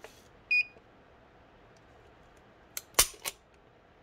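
A short electronic beep from a digital trigger pull gauge about half a second in, then, about three seconds in, the sharp metallic click of a Beretta 92X Performance pistol's hammer falling on a double-action dry-fire trigger pull, with lighter clicks just before and after it.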